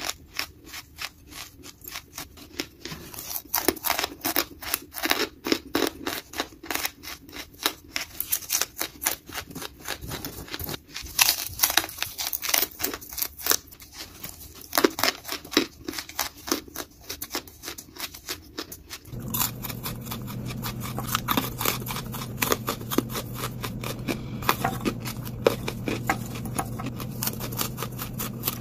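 Lump charcoal being bitten and chewed: a fast run of crisp cracking crunches. About two-thirds through the sound changes to a steady low hum with fainter, sparser crunches.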